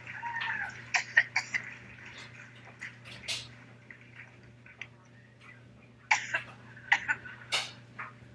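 A woman coughing in a prolonged coughing fit, in clusters of short, sharp coughs: a quick run about a second in, two more near three seconds, and another run from about six seconds in.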